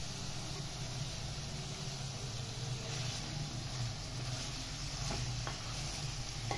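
Chicken pieces frying gently in oil with chopped garlic in an aluminium karahi over a low flame: a steady soft sizzle over a low hum, with a couple of faint knocks from a wooden spatula about five seconds in.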